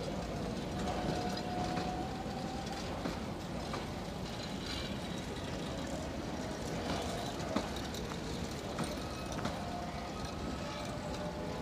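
Passenger train coaches rolling past on the adjacent track: a steady rumble of wheels on rail with a few sharp clicks from the wheels over the rail joints.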